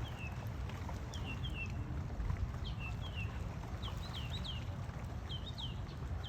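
Birds calling: short, sharply falling chirps repeated in quick groups of two or three, over a steady low rumble.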